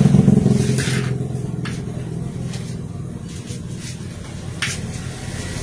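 A motor running with a low hum that is loudest at the start and fades over the first few seconds, with a few short sharp hissing clicks.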